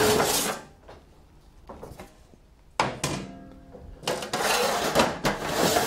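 Stainless steel rear cover panel of a polygraph cabinet being handled and lifted off. A sharp metallic clack comes about three seconds in, followed by scraping and rattling of the sheet metal.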